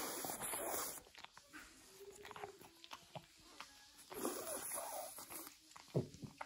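French Bulldog snuffling and licking close up: two breathy, hissing stretches, one at the start and one past the middle, with scattered wet mouth clicks between.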